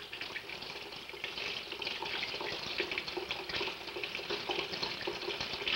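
Water running from a tap into a sink as a plucked raw chicken is rinsed and rubbed clean under it: a steady rush of water with small irregular splashes.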